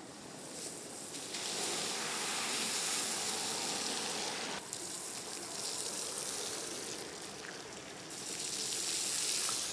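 Tyres hissing through water on a wet road as a car passes close by, over a steady wash of wet-street noise. The hiss drops off abruptly about halfway through and swells again near the end.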